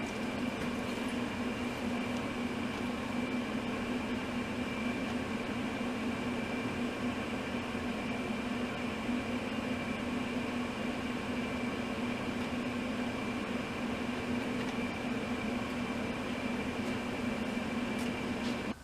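Electric motor running steadily at a constant speed: an even hum with a low tone and a faint high whine, no change in load.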